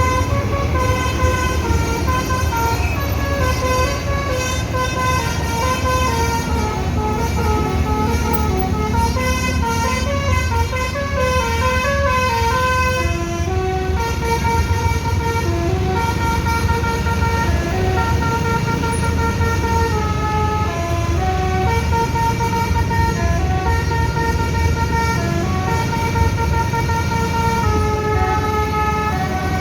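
Basuri telolet multi-tone bus horn playing a melody, its notes stepping quickly at first and then held longer from about halfway through, over a steady low rumble.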